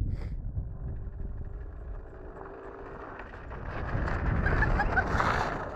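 Sled sliding fast over snow, a steady scraping rush with wind buffeting the microphone, growing louder about four seconds in.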